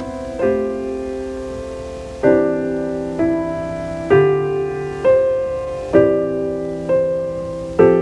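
Slow, soft piano music in the drama's score: chords struck about once a second, each ringing and fading before the next.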